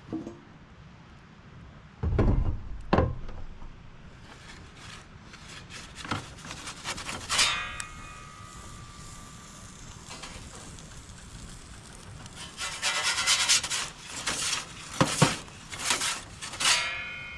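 Metal handling sounds from a charcoal pizza oven: two heavy thumps early on, then scattered knocks and a metallic clang that rings briefly. Later a slotted metal pizza peel scrapes across the oven's baking stone and knocks against the steel body, with another short ringing clang near the end.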